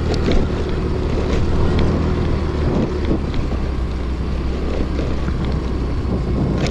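Scooter engine running steadily while riding over sand, with wind noise on the microphone and a few short clicks and knocks as the bike jolts.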